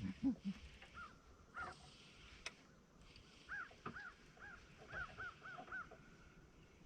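Birds calling over the water: a few short, harsh arched calls, then a quick run of about six in a row a few seconds in.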